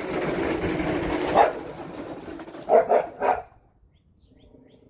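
A dog barks a few short times about three seconds in. Before that, a steady lawnmower engine runs for about the first second and a half.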